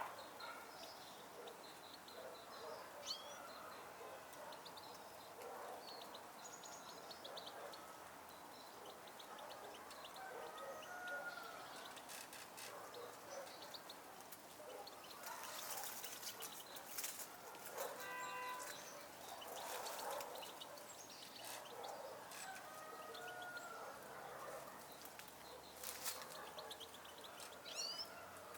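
Small songbirds chirping and twittering repeatedly, with outdoor background noise.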